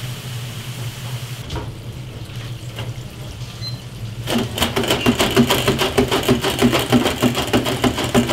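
Hot oil bubbling and crackling in a commercial deep fryer as potatoes fry, over a steady low hum. About four seconds in the crackling becomes dense and louder.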